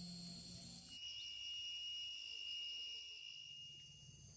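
Insects shrilling steadily in a high, even tone; about a second in the pitch of the shrill changes abruptly to a lower single tone.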